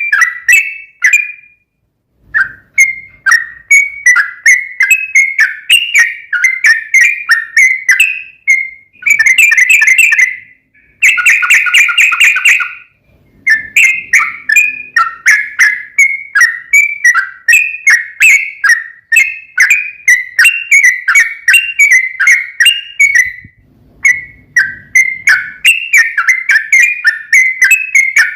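Yellow-vented bulbul (trucukan) singing a long, fast song of bubbly chirping phrases, broken by two dense rapid trills about ten seconds in.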